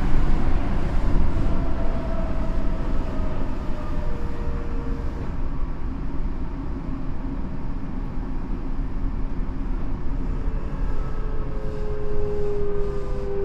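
Tokyo Metro 7000 series train running, heard on board: a steady rumble of wheels on rail under the whine of its Mitsubishi two-level IGBT VVVF inverter and 160 kW traction motors. The faint whine tones glide slowly downward, as the train slows on its approach to the terminus.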